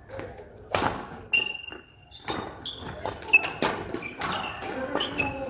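Badminton rackets hitting a shuttlecock in a fast doubles rally: a string of sharp hits mixed with thuds of footwork and short squeaks of court shoes on the floor.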